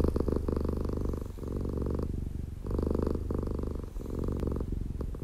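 Domestic cat purring close up, a steady low rattling purr that breaks briefly about every second as it switches between breathing in and breathing out.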